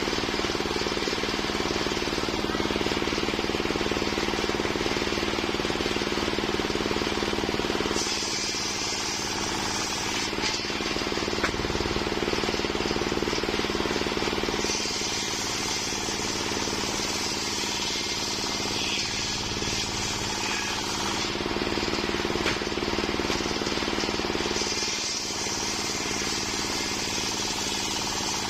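Homemade engine-driven circular saw running steadily while sawing waru wood. Its character shifts several times as the blade cuts in and runs free.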